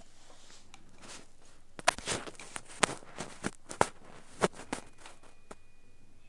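A quick run of sharp clicks and short scratchy crackles, about a dozen in three seconds, close to the microphone. Near the end a faint high steady tone comes in.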